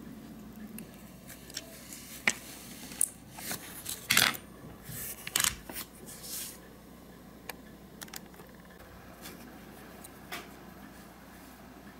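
Small metal hand tools and a diecast model car's wheeled baseplate clicking, clinking and scraping as they are handled and set down on a workbench, loudest about four seconds in, followed by a few lighter clicks.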